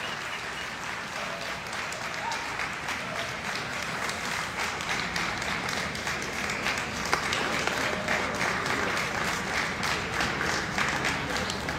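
Arena crowd applauding, a dense steady clatter of many hands clapping that swells somewhat about halfway through.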